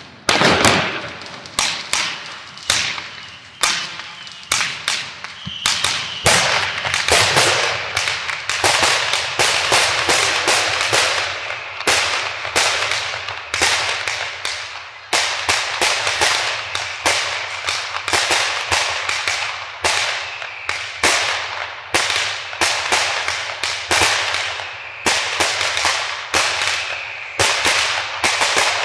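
Fireworks and firecrackers going off in rapid succession, dense sharp bangs and crackles several a second, echoing, with hardly a pause.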